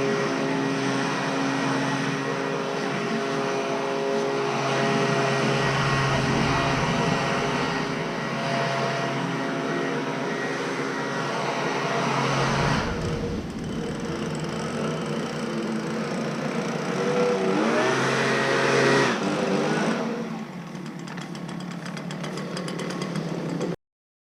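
Honda 216 self-propelled lawn mower engine running steadily under mowing load. The level drops about twenty seconds in, and the sound cuts off abruptly just before the end.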